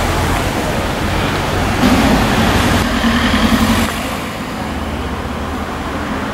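Street traffic noise with a car driving past, loudest from about two to four seconds in, then a quieter steady traffic hum.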